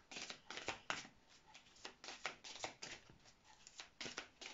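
A deck of oracle cards being shuffled by hand: a faint, irregular run of card flicks and slaps, several a second.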